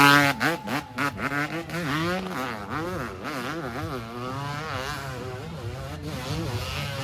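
Snowmobile engines revving, their pitch rising and falling quickly over and over, with more than one machine running at once.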